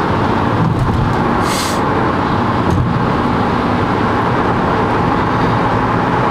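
Steady road and tyre noise inside a car cruising at freeway speed, with a brief hiss about a second and a half in.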